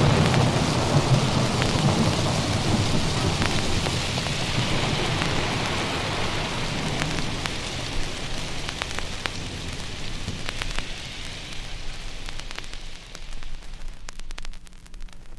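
Recorded rain and thunder effects closing a song, played from a vinyl record: thunder rumbling under steady rain at first, fading slowly, with the record's crackle and clicks standing out near the end.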